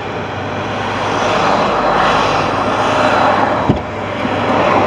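Road traffic heard from inside a parked pickup truck's cab: a steady noise that swells as a vehicle goes by and then fades. A single sharp click comes near the end.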